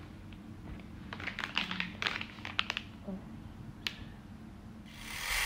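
Plastic packaging being handled: a run of small clicks and crinkles from a hand sanitizer bottle and a packet of wet wipes, one more click, then a short hiss near the end.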